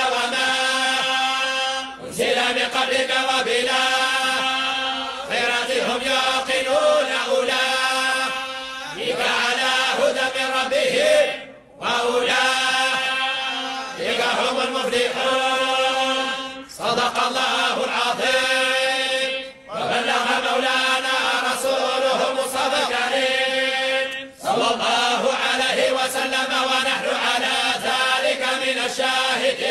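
Arabic religious chanting of a supplication, sung in long held melodic phrases of a few seconds each, with short breaks for breath between them.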